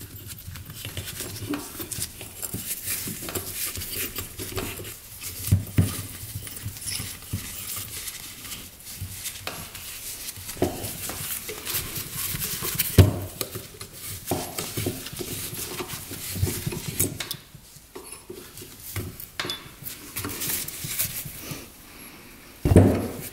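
Metal tools and valve parts clinking and clicking as valve springs and keepers are taken off the cylinder head of a Polaris Sportsman 500 engine. A few sharper knocks stand out, the loudest about halfway through and just before the end.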